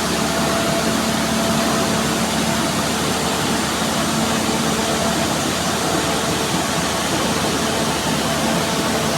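Loud, steady drone of running machinery in an engine house, a constant rushing noise with a steady low hum under it.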